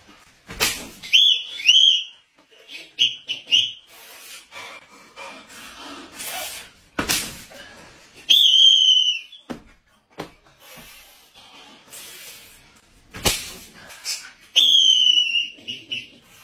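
Three sharp whacks of a stick striking a person, each followed within about a second by a shrill, high-pitched squeal, the first squeal broken into short bursts and the later two longer, dropping slightly then holding.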